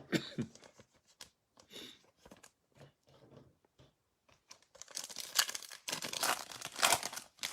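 A trading-card pack wrapper being torn open and crinkled by hand: a few light handling clicks at first, then dense crackling from about five seconds in.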